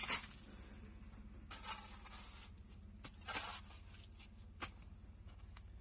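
Shovels scraping through a pile of concrete mix being turned by hand: three short, faint scrapes about a second and a half apart, with a few light knocks.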